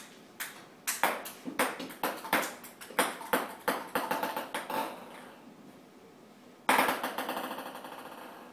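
Table-tennis rally: a celluloid ball clicking off paddles and table about three times a second. After a short lull, a louder rush of sound comes about two-thirds of the way through.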